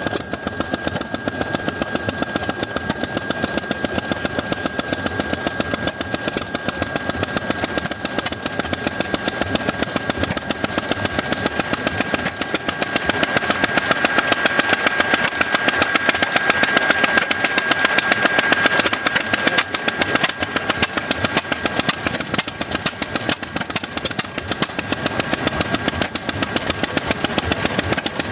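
Antique stationary flywheel gas engines running, a steady chugging of even exhaust beats, with a thin steady high tone alongside.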